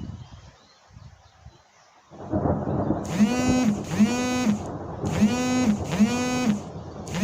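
Thunder rumbling during a thunderstorm: a low rumble fades, then a louder rumble sets in about two seconds in. Over the loud rumble come four short identical pitched notes in two pairs, all cut off suddenly near the end.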